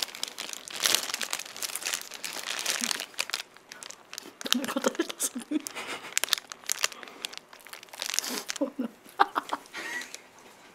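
Close-miked crinkling of a chocolate bar's wrapper, dense and crackly for the first few seconds, then bites into the chocolate bars, with short muffled voice sounds from mouths full of chocolate in between.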